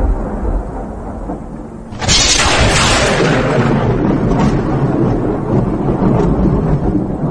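Thunder: a low rumble, then about two seconds in a sudden loud crack that fades into a continuing rumble.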